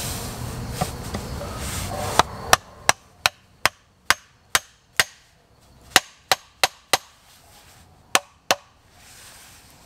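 Sharp wood-on-wood knocks: a wooden leg being tapped into a hole in a split-log seat with a wooden baton. About fourteen knocks in uneven groups start about two seconds in and stop near the end.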